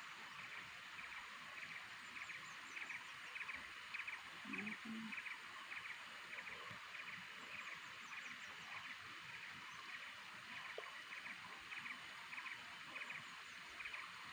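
Animal chorus from a rice paddy: a steady, faint train of short pulsed calls, about one and a half a second, with a few faint high chirps now and then.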